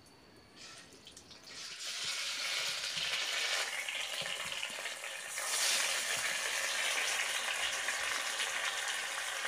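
Catfish pieces sizzling in hot oil in a frying pan. The sizzle starts about two seconds in as the first piece goes in and grows louder about five seconds in as another piece is added.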